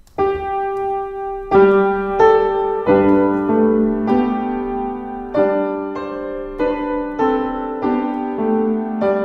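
Upright piano playing a slow piece of strict-style polyphony in several voices. Sustained notes overlap, with new notes struck about every two-thirds of a second.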